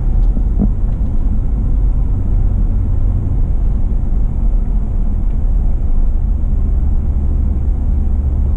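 Car driving slowly, a steady low rumble of engine and road noise.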